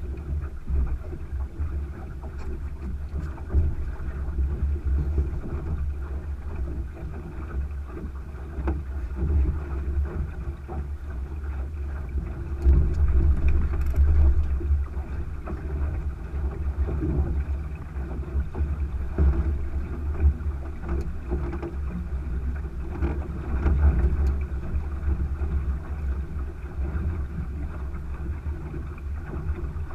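Wind buffeting the microphone and water rushing along the hull of a Thistle sailing dinghy under way: a low, muffled rumble that swells and eases in gusts, strongest about halfway through, with a few faint knocks.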